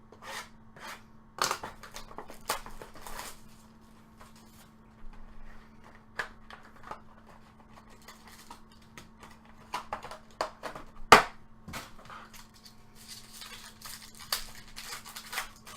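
Trading cards and their packaging being handled: scattered clicks, taps and snaps, one sharper snap about two-thirds of the way through, and a stretch of crinkly rustling near the end, over a steady low electrical hum.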